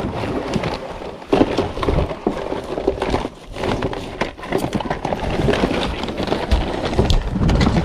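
Rummaging through a bag of fishing tackle, with rustling and irregular clicks and knocks as sinkers and gear are shifted about by hand.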